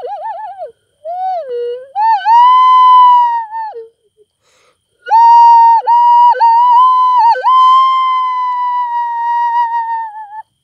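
Steam whistling out of moist wood burning in a campfire: a loud, clear whistle that warbles and slides in short broken pieces, then holds long, wavering notes with quick dips in pitch after a pause of about a second.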